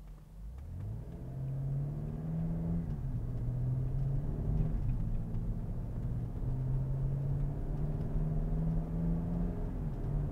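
BMW X5 M's twin-turbo V8 pulling a loaded travel trailer of about 5,500 lb. Its note rises in pitch about a second in, then holds steady with small steps in pitch, heard from outside the car over tyre and wind noise.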